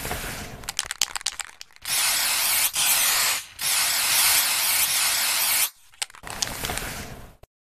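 Aerosol spray-paint can: a quick run of clicks and rattles, then two long hisses of spraying with a short break between them, then more clicks and a fainter hiss near the end.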